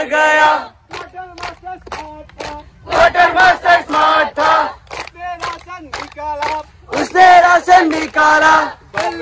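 A group of young cadets chanting together in loud shouted bursts, three times, with rhythmic hand clapping in between.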